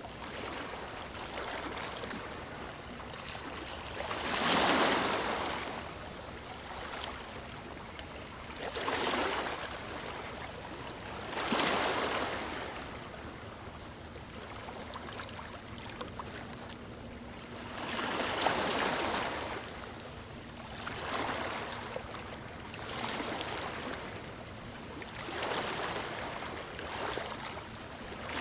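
Ocean waves breaking on a beach: about seven surges of surf, each swelling and fading over a second or two, with a steady wash between them; the loudest breaks about four seconds in and near twelve seconds.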